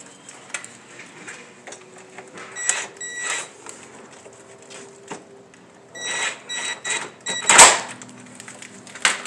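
Metal hand tools clicking and clinking, with short ringing metallic pings, as a screw is fastened into the headlight's mounting bracket. The loudest sound is a sharp knock about seven and a half seconds in.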